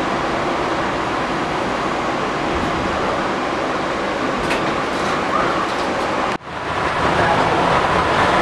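Steady running noise of a light-rail train heard from inside the car as it pulls away from a station. About six seconds in, the sound drops out for an instant at an edit, then carries on a little louder.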